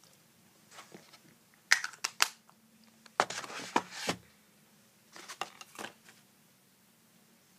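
Makeup items being handled and rummaged through: a few sharp clicks and knocks about two seconds in, a rustling clatter lasting about a second after that, and another run of clicks a little later.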